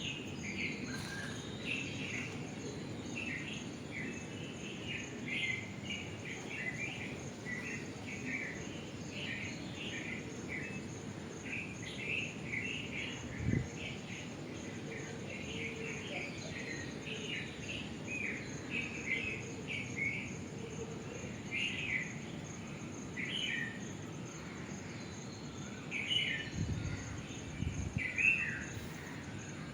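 Unidentified birds calling with many short, repeated chirps over a steady high insect drone. There are a couple of low thumps, one about halfway through and one near the end.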